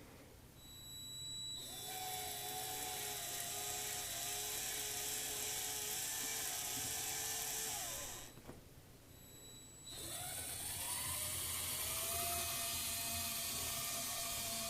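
Small electric motor of a toy train whining as it runs, stopping for about two seconds, then spinning up again with a rising pitch and running on. A thin high steady tone sounds briefly just before each start.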